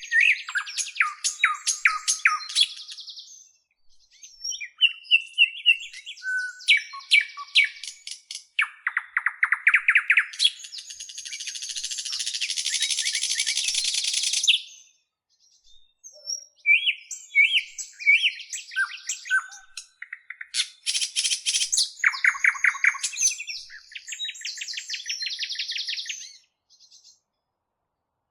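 A bird singing a long, varied run of phrases: rapid trills and clicking rattles with short pauses between, and a loud harsh buzzing stretch in the middle lasting about four seconds.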